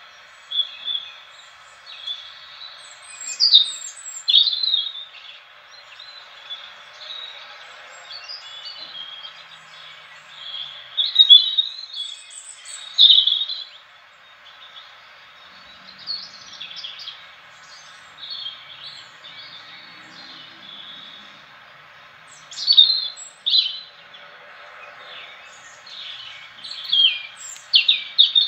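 European robin singing: short phrases of high, thin, fast-changing warbling notes with pauses between them, over a faint steady hiss.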